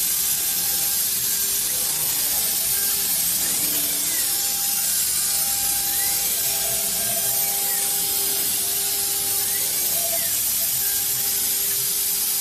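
SUDIAO 600x900 mm CNC router cutting a curved profile into a panel. The spindle and cut give a steady hiss, and the machine's steady hum carries a whine that rises and falls in pitch a few times as the head follows the curves.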